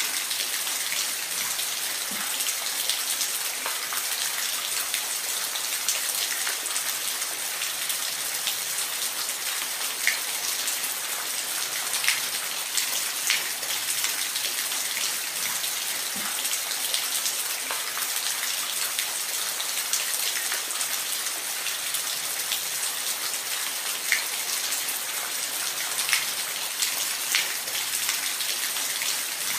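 Waterfall: a steady rush of falling water, an even hiss weighted toward the high end, dotted with brief splashing ticks of droplets.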